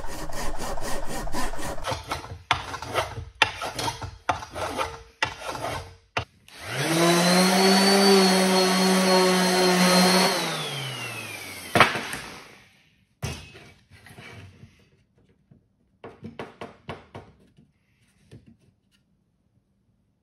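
Hand saw cutting driftwood in a run of back-and-forth strokes, about two a second. Then an electric orbital sander spins up, runs steadily for about four seconds and winds down, followed by a sharp click.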